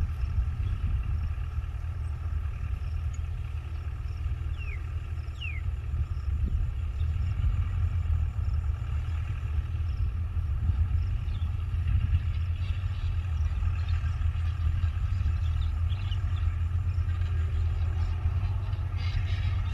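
Excavator's diesel engine running steadily, a continuous low rumble with little change in pitch.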